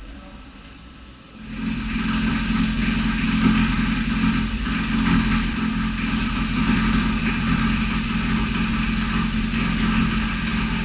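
Five-axis vertical machining center running with a steady mechanical hum and hiss, starting about a second and a half in.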